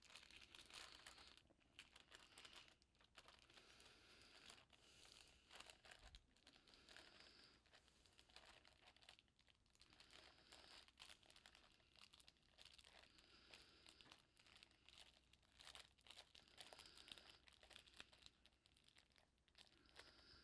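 Parchment paper crinkling faintly and irregularly as its edges are folded and crimped by hand, sealing a fish en papillote packet shut.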